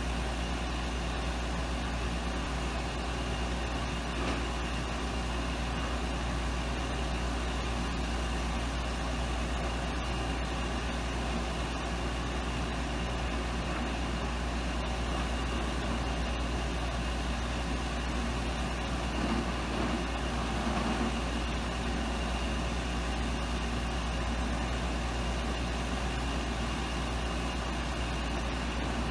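Delivery truck idling, a steady low rumble that does not change.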